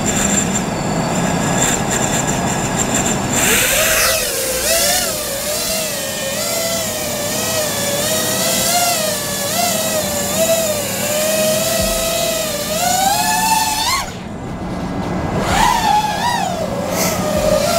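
5-inch FPV quadcopter's four T-Motor Velox V3 2306 2550KV brushless motors and props whining in flight. After a few seconds of steady rushing noise, the whine rises and falls with the throttle and climbs in pitch before cutting out briefly about fourteen seconds in, then comes back. The quad is running smoothly.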